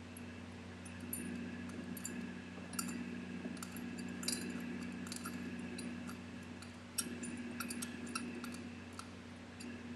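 Light metallic clicks and clinks, scattered and irregular, as the brass gas-hose fitting is threaded and tightened onto the regulator's fitting. A steady low hum runs underneath.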